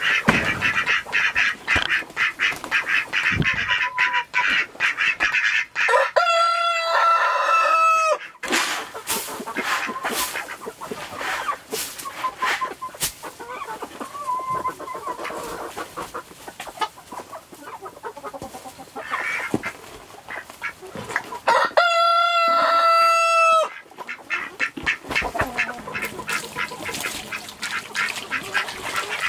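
A mixed flock of chickens and ducks calling: hens clucking and ducks quacking throughout, with a rooster crowing twice, about six seconds in and again about twenty-two seconds in, each crow held for roughly two seconds.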